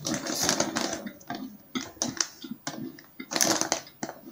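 Metallized plastic snack bag of cheese puffs crinkling and rustling as it is handled and pulled wide open, in irregular bursts, loudest at the start and again near the end.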